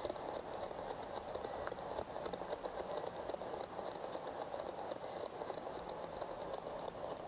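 Ghost box (spirit box) sweeping through radio stations: a steady hiss of static chopped by rapid, even ticking.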